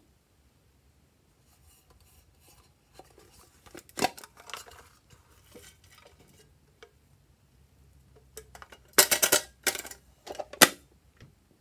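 Slime ingredients being handled and poured from plastic containers into a glass dish: sticky squelches and crackles with clicks and knocks of plastic against glass, loudest in a rapid run of crackles about nine seconds in and one more near the end.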